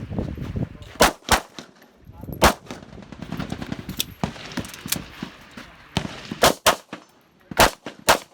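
Pistols firing on a shooting range: about ten single shots at uneven intervals, some loud and close, others fainter from farther down the firing line.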